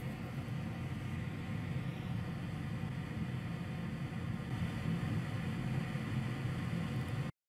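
Steady low hum with a faint hiss, like a running fan or machine on a workbench, unchanging until it cuts off to dead silence shortly before the end.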